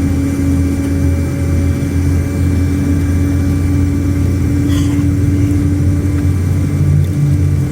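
Steady low drone of a Boeing airliner's jet engines and cabin systems heard from inside the passenger cabin, during the engine-start phase on the ground. A second, lower hum joins about seven seconds in.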